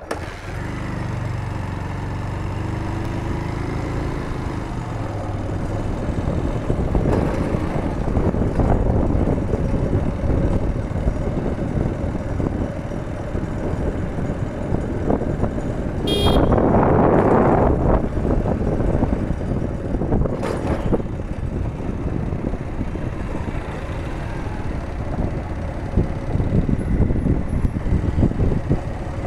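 Motor-vehicle engine running and road and wind noise while riding along a road. The engine pitch rises in the first few seconds as it speeds up. About 16 seconds in there is a brief sharp high sound and a louder spell.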